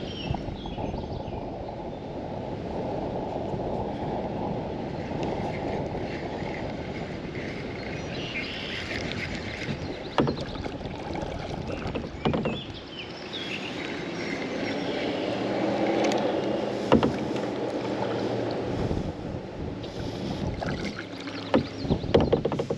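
Kayak being paddled: the paddle dipping and pulling through the water, with a steady wash of water, and a few sharp knocks scattered through.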